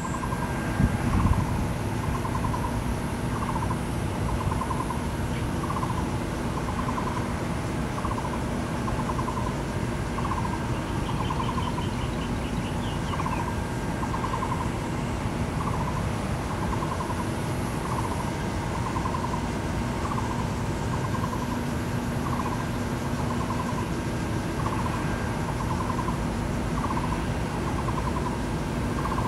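A bird calling over and over, a short note followed by a longer pulsed one, about every two seconds, over a steady low rumble. A couple of low thumps come about a second in.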